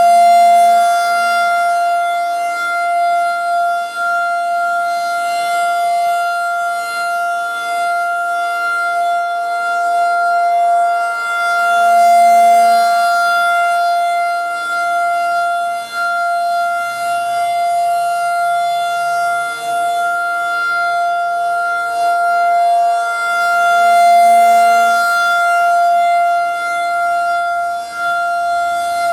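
Federal Signal 2001-DC electronic outdoor warning siren sounding its steady alert tone during a nuclear-plant siren test, one high, unwavering pitch. The sound swells and fades about every twelve seconds as the rotating speaker head sweeps past.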